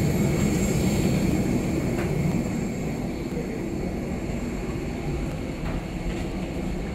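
Steady rumble of a parked airliner and the airport ramp, with a faint high whine over it, slowly fading.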